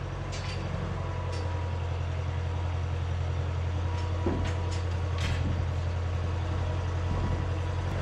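An engine or motor running steadily as a low drone, with a couple of brief knocks about four and five seconds in.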